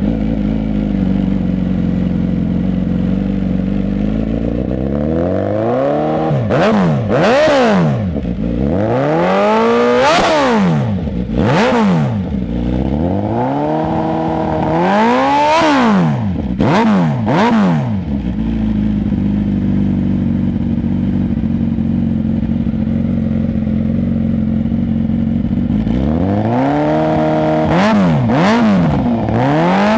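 Suzuki Hayabusa's 1340 cc inline-four, breathing through a Toce S-Series slip-on exhaust canister, idling and being revved in a string of quick throttle blips. Each rev rises and drops straight back to idle. The blips come in a long run, then a stretch of steady idle, and a few more near the end.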